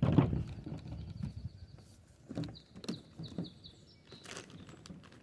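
Clatter and clicks of an aluminium equipment case being handled and its lid lifted: a loud knock at the start, then a few sharp clicks and knocks. Behind it, a bird sings a high, rapid trill for about three seconds.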